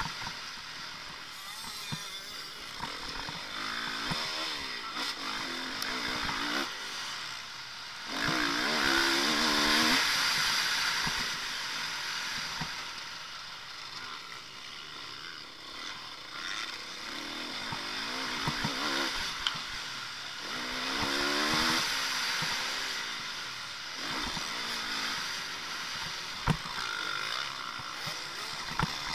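Motocross bike engine heard from the bike itself, revving up and falling back again and again as it goes through the gears around the dirt track. It is loudest in two long pulls, about eight seconds in and again about twenty seconds in.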